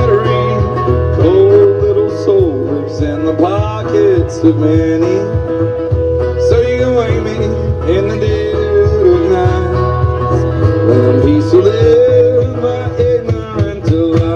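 Busker singing and playing a metal-bodied resonator guitar, amplified through a small PA, in a country-blues style, with a steady low bass underneath.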